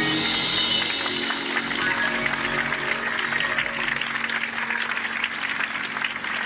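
Audience applauding, the clapping swelling from about a second in as the last held notes of the music die away.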